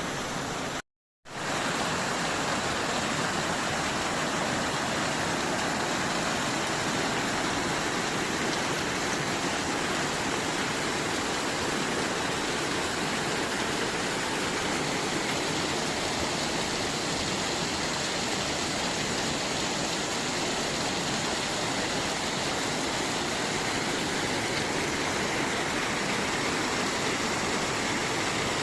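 Waterfall rushing steadily, with a brief dropout to silence about a second in.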